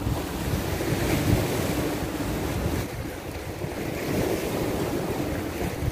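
Wind buffeting the microphone over the wash of sea waves: a steady rumbling noise with no clear events.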